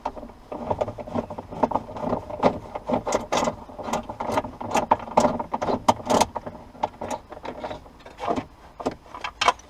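Irregular clicks, rattles and knocks of a car seat belt's metal fittings and surrounding trim being handled and fitted, a few sharp clicks a second with short pauses.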